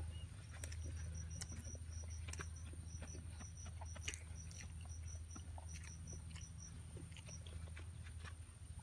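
Soft clicks and mouth sounds of someone eating barbecued chicken and rice by hand, over a small creature's high-pitched chirping: quick runs of short pips that stop about seven seconds in.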